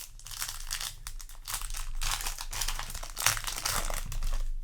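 Crinkling of a foil trading-card booster pack wrapper being handled, with irregular crackles throughout.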